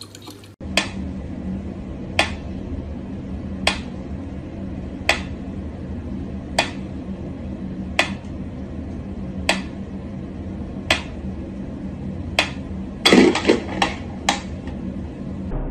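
Wind-up pyramid mechanical metronome ticking slowly and evenly, one sharp tick about every second and a half, over a steady low hum. Near the end a short burst of louder knocks and clatter breaks in.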